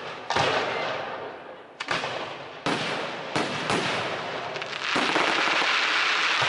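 Aerial firework shells bursting in a quick series of sharp bangs, each fading away over a moment. From about five seconds in, a dense, steady crackle of many small pops takes over.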